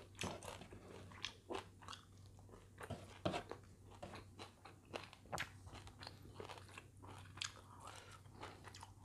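A person chewing and biting crunchy food in irregular crisp crunches, the loudest about three seconds in, over a faint steady low hum.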